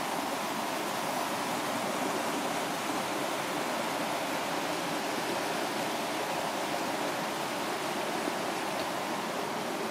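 The River Dochart's falls and rapids: water rushing steadily over rocks, an even, unbroken sound.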